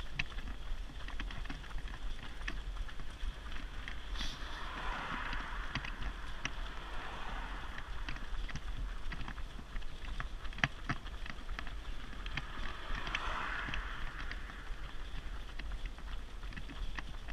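Many runners' footfalls clicking irregularly on tarmac over the steady rolling rumble of a pushed running buggy's wheels, heard close from the buggy, with some wind on the microphone.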